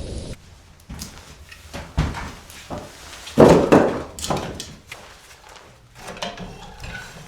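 A series of irregular knocks and thuds, the loudest a heavy thud about three and a half seconds in.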